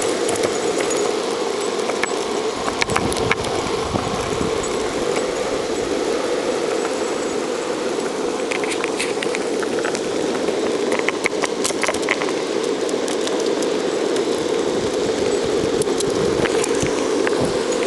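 Longboard wheels rolling steadily over pavement while the board is towed along, with a few light clicks and rattles scattered through.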